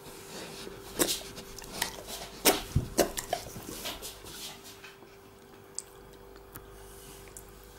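Doberman sniffing and snuffling with its nose pushed against shirt fabric: a quick run of short sniffs and clicks in the first half, then only a few faint ticks, over a steady faint hum.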